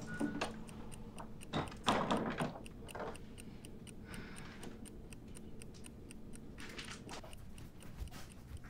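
Steady, evenly spaced ticking, with louder spells of soft movement noise about two seconds in and again around four seconds.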